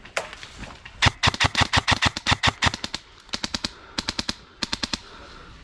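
Airsoft rifle firing in rapid strings: a long string of about a dozen shots about a second in, then three short bursts.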